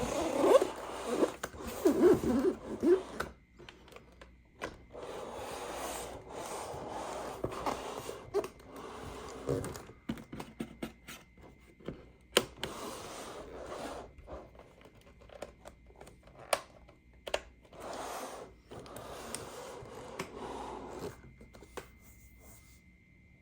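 Hands handling toy packaging and plastic toy parts: rustling and scraping, loudest in the first few seconds, with scattered sharp clicks.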